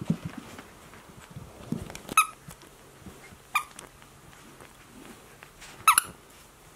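Border terrier puppy playing tug-of-war with a plush toy: a few short low growls at the start, then three short high squeaks spaced about a second and a half apart, the last the loudest.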